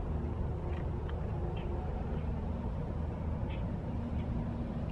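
Steady low background rumble with a faint even hum and a few faint high ticks.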